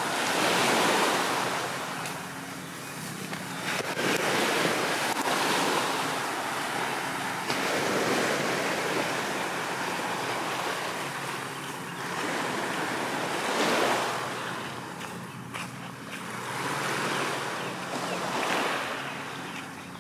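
Small waves washing onto a sand beach, the surf swelling and fading every few seconds, with some wind on the microphone.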